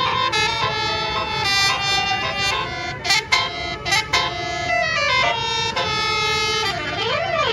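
Bus telolet 'basuri' multi-trumpet horn playing a tune: held notes that change pitch every fraction of a second. There are quick pitch swoops about three and four seconds in, and a siren-like rise and fall near the end.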